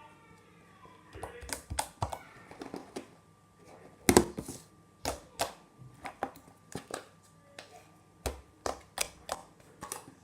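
Homemade slime being worked by hand, with irregular sharp sticky clicks and pops as air pockets burst. The loudest pop comes about four seconds in.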